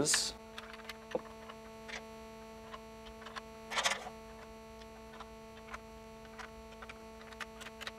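Faint small clicks of Bussmann PV fuses and fuse holders being fitted and snapped shut in a solar combiner box, with a sharper click about a second in and a brief rustle near four seconds. A steady electrical hum runs underneath.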